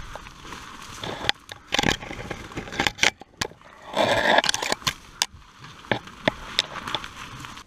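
Dry twigs and bramble stems snapping and scraping against clothing as a person forces through dense undergrowth: irregular sharp cracks with several longer rustling scrapes, the loudest about four seconds in.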